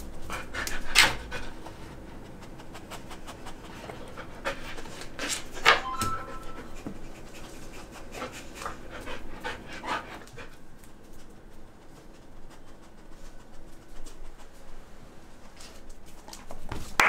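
Golden retriever panting quickly and sniffing as she searches, with a couple of louder sharp sounds about a second in and near six seconds.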